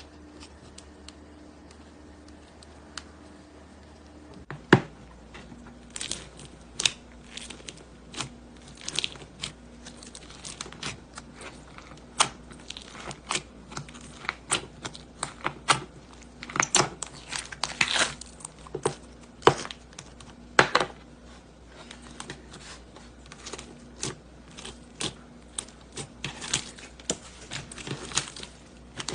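Slime being squeezed and played with by hand, giving an irregular string of sharp clicks, pops and crackles. It starts after about four and a half seconds of near-quiet and keeps going, thicker in places.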